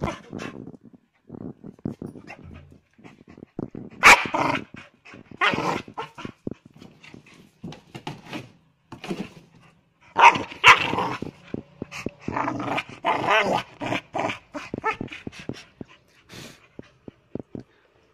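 Dog barking and growling in several loud bursts, with scattered clicks and rustles in between.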